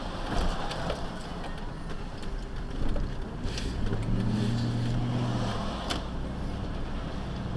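A vehicle being driven, heard from inside the cab: steady road and engine noise, with a low engine drone that comes in about four seconds in and drops away under two seconds later, and a few scattered sharp clicks or rattles.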